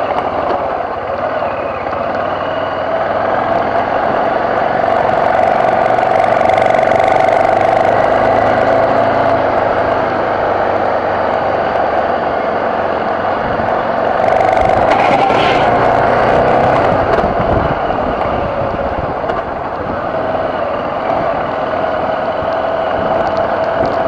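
BMW F650GS motorcycle engine running steadily under load on a gravel climb, its note rising and easing with the throttle. A short rattle and knock come about fifteen seconds in.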